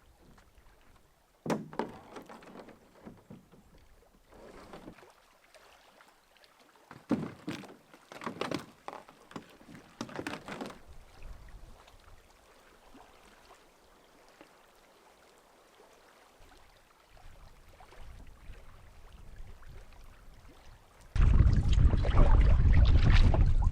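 Canoe paddle strokes in the water, a few separate splashes a couple of seconds apart, then a lull. Near the end a much louder, steady rushing sound starts suddenly.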